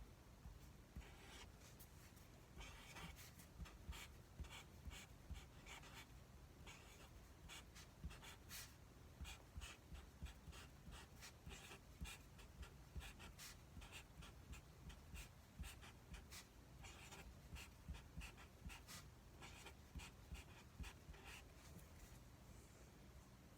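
Faint, irregular rustling, scratching and small clicks of plastic food-delivery packaging being handled and unwrapped.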